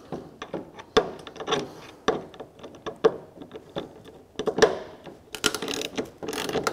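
Hand ratchet with a 7/32 Allen bit clicking in short strokes as it tightens a ladder-rack clamp bolt. The clicks come faster near the end.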